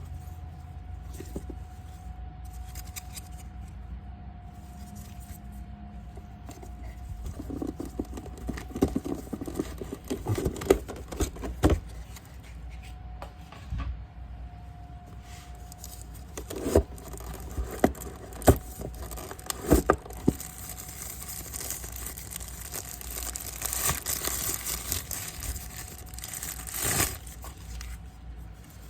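Unboxing handling noises: scattered clicks and knocks, with crinkling and tearing of packaging, most of it near the middle and a hissy rustle near the end. A faint steady hum sits underneath.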